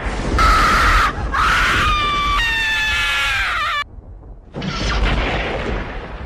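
Screaming sound effects: three shrill screams, the last a wail falling in pitch that cuts off suddenly about four seconds in. A low boom follows near the end, over a steady low rumble.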